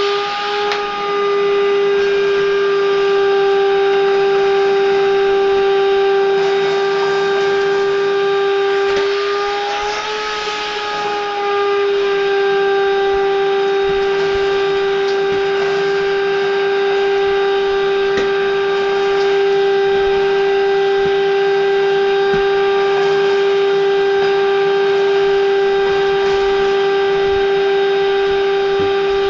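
Westinghouse Unplugged cordless bagless vacuum cleaner's motor running with a steady whine; about ten seconds in its pitch rises slightly and the level dips briefly before it settles again.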